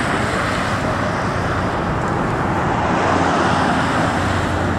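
Road traffic on a multi-lane highway: cars and a pickup truck driving past close by, a steady tyre and engine noise that swells about three seconds in.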